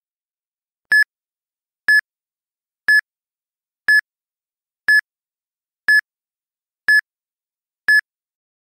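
Countdown timer beeping: a short, high electronic beep once a second, eight times, with silence in between, ticking off the seconds of a countdown.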